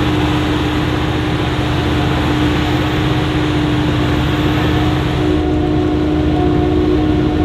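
Heavy maize-harvesting machinery, a forage harvester and tractor engines, running steadily under load with a constant hum. The sound shifts slightly about five seconds in.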